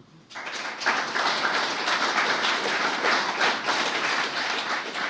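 Audience applauding; the clapping starts up within the first second and then holds steady.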